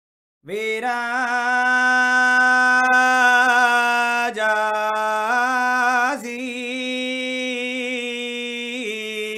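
Sāmavedic chant (Sāma gāna): a single unaccompanied voice sings long held vowels, starting about half a second in. The pitch steps between a few notes, with changes at about four, six and nine seconds.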